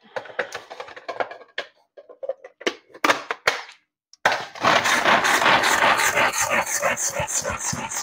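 Kitchen utensils clattering and knocking for about four seconds. Then, after a brief silence, a loud continuous sizzle and crackle starts suddenly: vegetables frying in hot oil for a tadka.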